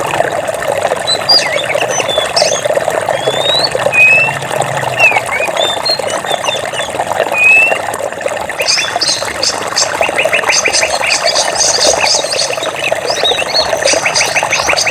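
Flowing water making a steady rush, with birds chirping short rising and falling whistles over it. From a little past halfway a fast, evenly repeated high trill joins in.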